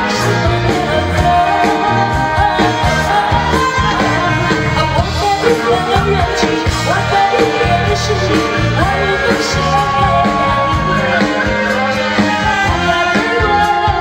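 A woman singing a pop song live into a microphone, backed by a live band with drums.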